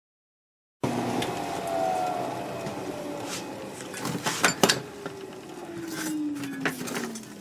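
Small metal lathe winding down after being switched off: its motor tone falls steadily in pitch over several seconds, with a few sharp clicks and knocks in the middle.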